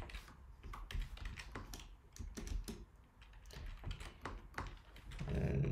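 Keystrokes on a computer keyboard as a line of code is typed: irregular quick clicks, with a short low hum near the end.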